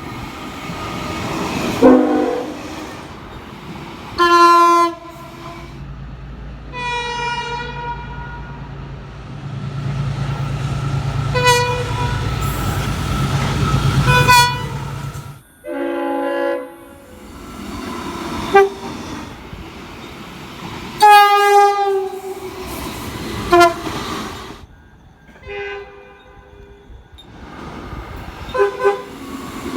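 Locomotive air horns sounding in a string of short and long blasts, from several different trains, each horn a chord of several tones. A passing train's low rumble runs under the horns for several seconds in the middle.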